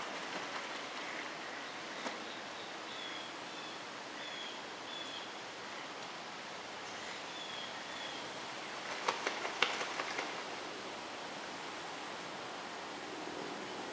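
Outdoor woodland ambience: a steady hiss of distant background noise with a few short, high chirps. A quick cluster of sharp clicks comes about nine seconds in.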